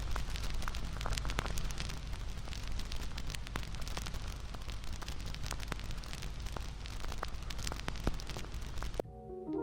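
Bonfire crackling and popping: a steady hiss full of sharp, irregular snaps of burning wood. It cuts off suddenly near the end, where soft piano notes begin.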